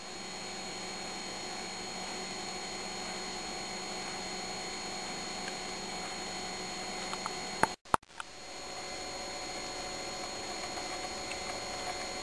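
Steady electrical hum and hiss with faint high, even whine tones: room tone. It cuts out briefly a little before eight seconds in, with a couple of faint clicks just before.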